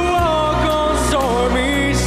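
Live music: a man singing a slow ballad into a microphone, holding notes that glide in pitch, over steady instrumental backing.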